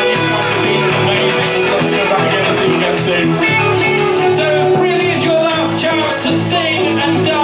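Live rock covers band playing through a pub PA: electric guitar, bass and drums, with a lead singer's voice on top.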